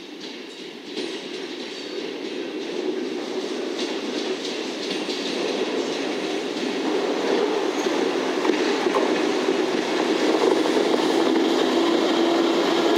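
EF65 DC electric locomotive running light, its wheels rumbling on the rails and growing steadily louder as it approaches, with faint rail-joint clicks.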